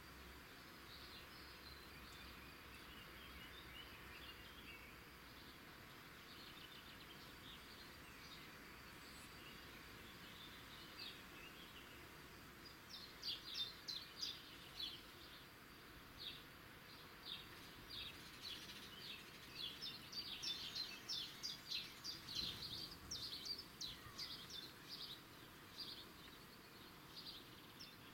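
Small songbirds chirping and singing: faint scattered chirps at first, then from about halfway through, quick runs of short high notes, over a soft steady background hiss.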